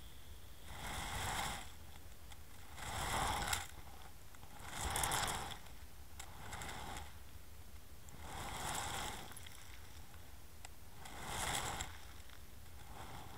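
Fishing lead and camera rig grinding and scraping over a crushed-shell and gravel seabed, heard underwater: six rough surges about every two seconds as the rig is tugged along the bottom on the drift.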